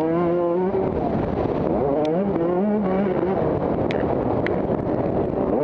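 Motocross bike engines running hard, the pitch repeatedly rising and falling with the throttle.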